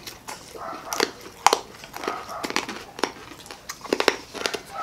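Close-up crunching and chewing of crispy deep-fried street food, a string of irregular sharp crackly bites.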